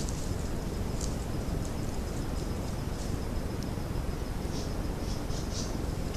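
Outdoor ambience: a steady hiss with a faint, thin high insect drone and a few brief high chirps about four to six seconds in.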